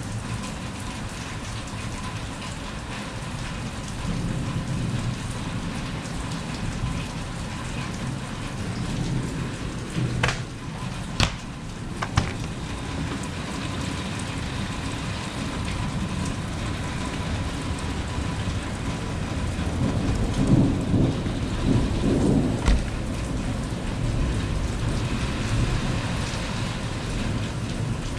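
Steady heavy rain falling during a thunderstorm, with a low rumble of thunder swelling about twenty seconds in. A few sharp taps come near the middle.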